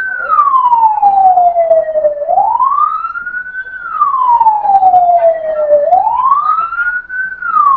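Emergency vehicle siren in a slow wail: the pitch climbs for about a second and a half, then slides down for about two seconds, repeating roughly every three and a half seconds.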